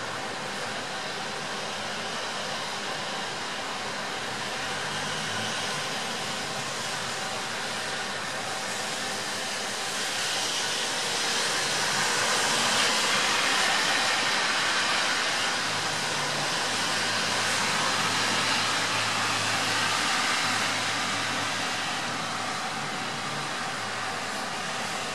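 Steady hiss of rain that swells louder in the middle and eases off again, with a faint low hum under it in the second half.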